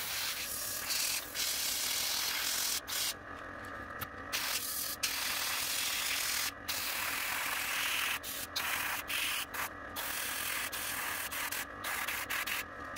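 Gravity-feed airbrush spraying metallic blue paint: a hiss of air and paint that stops and starts again many times in short breaks as the trigger is worked.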